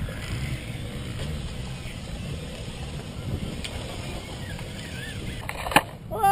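Wind rumbling on the microphone over faint, distant radio-controlled cars running around a dirt track, with a brief rising and falling motor whine. A sharp click comes near the end.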